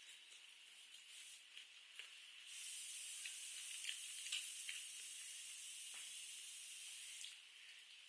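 Soft, scattered mouth clicks of eating, with a steady hiss that starts about two and a half seconds in and stops about five seconds later.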